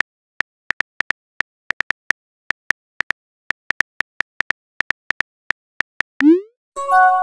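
Simulated phone keyboard tap clicks from a texting-story app, sharp single ticks at an uneven pace of about three a second as a message is typed. Near the end a short rising swoosh as the message is sent, then a chime of a few notes for the incoming reply.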